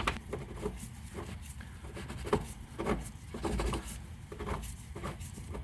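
Irregular light knocks, clicks and scraping from hand tools working a stuck shock bolt loose.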